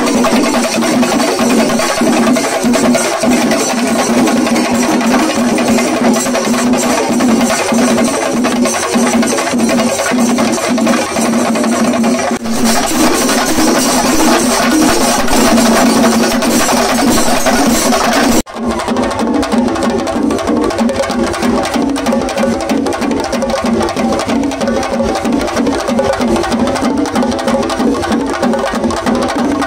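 Chenda melam: an ensemble of chenda drums beaten with sticks together with clashing ilathalam hand cymbals, playing a fast, dense, driving rhythm. The sound cuts off and resumes abruptly about twelve seconds in and again about eighteen seconds in.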